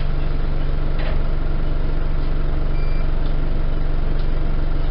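Enviro 200 single-deck bus heard from inside the saloon: a steady engine drone. Two short high electronic beeps sound, one a little before three seconds in and one at the very end.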